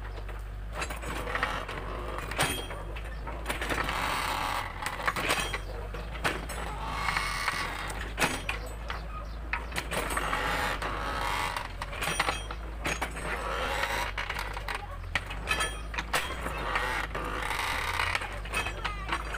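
Mini excavator running steadily while its hydraulic arm digs, with frequent sharp knocks and creaks from the bucket and boom working the soil.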